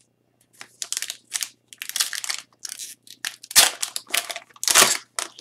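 Foil wrapper of an Upper Deck Trilogy hockey card pack being crinkled and torn open by hand: a run of irregular crackles starting about half a second in, loudest near the end.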